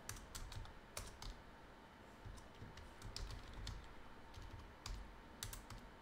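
Typing on a computer keyboard: faint, irregular keystrokes, with a few louder clicks.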